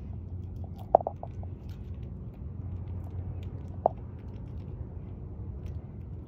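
Steady low rumble of road traffic, with two sharp clicking taps, about a second in and again near the four-second mark, from a scrub-jay pecking at peanuts in a metal feeder dish.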